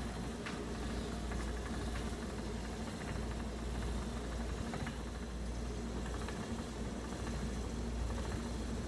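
Wooden treadle spinning wheel turning steadily as angora yarn is spun on it, a low, even whirring rumble.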